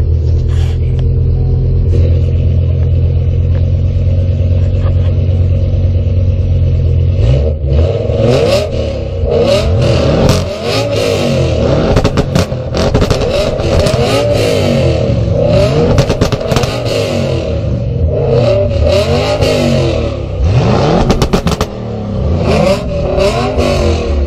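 Exhausts of an Audi RS6 V8 and a BMW M5 V10 idling steadily, then from about seven seconds in revved again and again, the pitch climbing and falling with each blip. Sharp cracks from the exhaust come several times between the revs.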